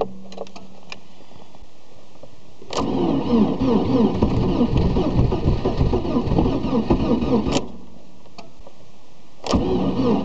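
A Lada 2110's engine being cranked by its starter in −30 °C cold without catching. One crank of about five seconds starts about three seconds in and stops abruptly, and another begins near the end. Between cranks there is a steady low hum and a few light clicks.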